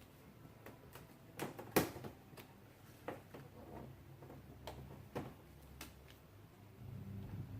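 About ten scattered sharp clicks and taps, the loudest about two seconds in, from plastic rock-guard parts being handled and fitted into place by hand.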